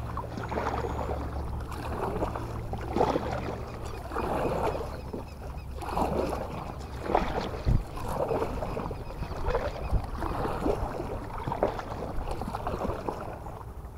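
Kayak paddle strokes dipping and pulling through the water, a swish roughly every second to second and a half.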